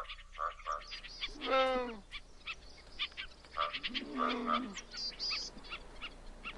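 Animal calls: two longer croaking calls, about one and a half and four seconds in, among scattered short chirps.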